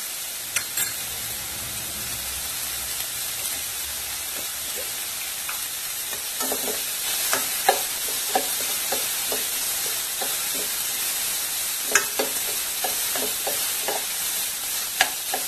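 Chopped vegetables sizzling in a stainless steel pan over high heat, a steady hiss. From about six seconds in, a metal slotted spoon scrapes and taps against the pan about twice a second as the vegetables are stirred.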